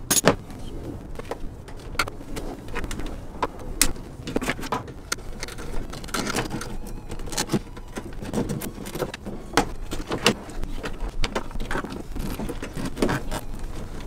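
Irregular clicks, taps and light rattles of hands working on the truck's front end, handling tools, fasteners and wiring, with some sharper knocks spread through.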